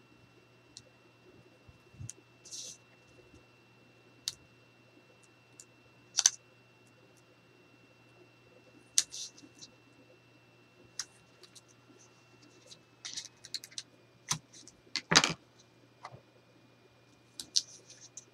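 Scattered small taps, clicks and short crinkly, scratchy rustles of adhesive tape being pulled and pressed by hand onto a Tyvek paper flap on a cutting mat. The loudest rustle comes about three-quarters of the way through. A faint steady hum runs underneath.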